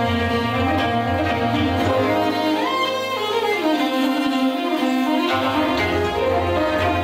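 Mongolian folk ensemble music led by bowed two-stringed horsehead fiddles (morin khuur), playing a flowing melody over a low bass line that drops out for a few seconds in the middle.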